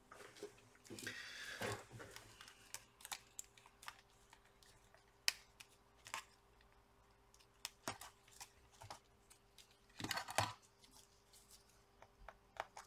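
Faint scattered clicks and taps of small plastic and metal laptop parts being handled and fitted with a small screwdriver, with a couple of short rustles about a second in and again near the end.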